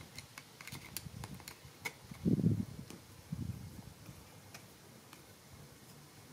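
Faint scattered clicks of a screwdriver turning a small screw in the metal gear housing of a spinning fishing reel, with two short low muffled handling sounds about two and three seconds in, the first the louder.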